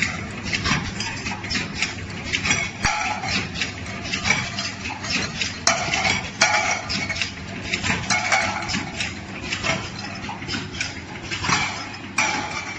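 Can seaming machine working on metal cans: repeated metallic clinks and clatter, with short ringing passes every second or two.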